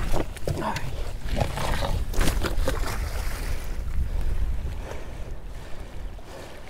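Wind rumbling on the microphone over water, with irregular splashing and knocks at the boat during the first few seconds that die down toward the end.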